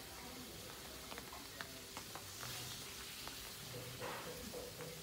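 Faint steady hiss with scattered small clicks and crackles.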